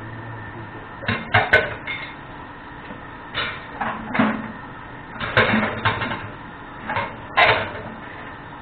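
Kitchen cookware and utensils clattering: irregular knocks and scrapes in four short clusters, the sharpest just past halfway and near the end.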